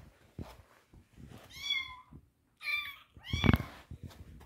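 A cat meowing three times in quick succession, high-pitched calls that each rise and fall a little. A loud low thump lands during the third meow.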